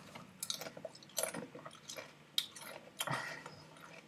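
Potato chip being chewed: about four crisp, irregular crunches.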